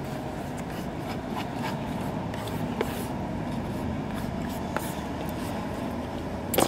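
Steady hum of street traffic, with a few small clicks and scrapes from a plastic fork in a plastic takeaway container.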